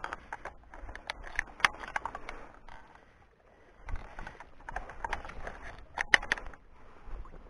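A person wading through shallow marsh water among reeds: splashing and rustling with sharp crackles, in two spells with a short lull about halfway through.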